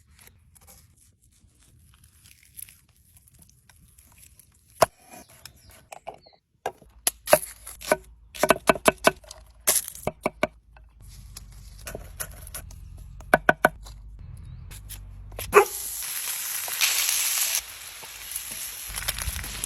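Cooking clatter of knocks and ringing clinks, then, about three-quarters of the way in, a loud steady sizzle as steak hits a hot pan.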